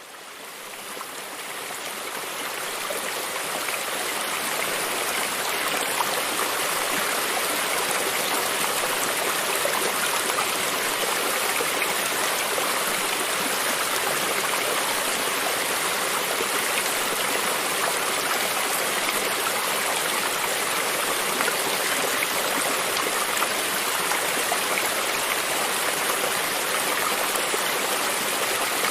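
Running water of a stream, a steady rushing and babbling that fades in over the first few seconds.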